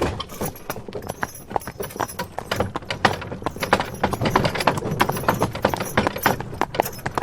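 Horse pulling a wagon at a fast pace: rapid, continuous hoofbeats with the wagon's wooden and metal parts rattling.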